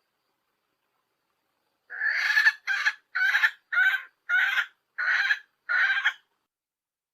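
A hen's calls played from a recording: after about two seconds of silence, a string of seven short calls comes at an even pace, the first a little longer than the rest. It is the female's call used to lure males and bring them into breeding condition.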